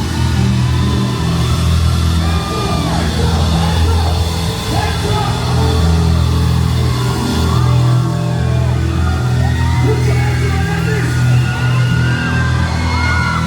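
Loud music with a heavy bass line changing note every second or so, with voices yelling and calling over it.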